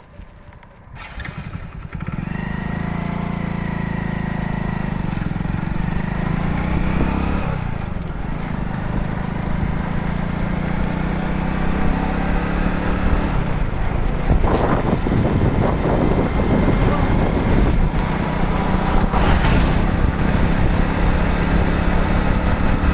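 Motorcycle engine running as the bike pulls away about two seconds in and rides on along the road, with wind rushing over the microphone from about eight seconds on.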